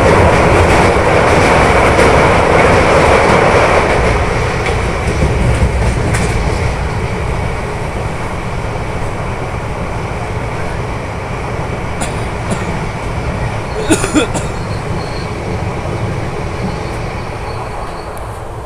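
Indian Railways express coaches running at speed on the track. For the first few seconds there is a loud rattling rumble as they cross a steel truss bridge. After that the rumble of wheels on rail is steadier and quieter, with a couple of sharp knocks about fourteen seconds in.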